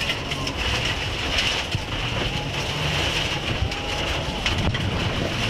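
Mitsubishi Lancer Evo IX rally car heard from inside the cabin at speed on gravel: its turbocharged four-cylinder engine runs steadily under a constant rush of tyre and gravel noise, with scattered small knocks.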